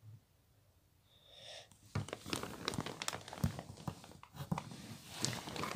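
Hands handling a slime package and its little container. It starts nearly silent; about two seconds in comes a busy run of crinkling with many small clicks and taps.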